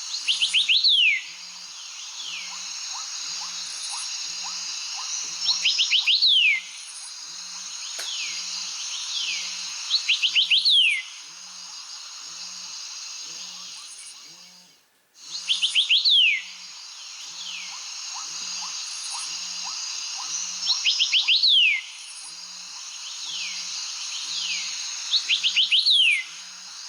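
Mobile phone ringtone or alarm tone made of recorded birdsong, playing in a loop: a quick run of falling chirps every four to five seconds over a steady background of chirping, with a soft low pulse beating about once a second. The loop cuts out briefly about halfway and starts again.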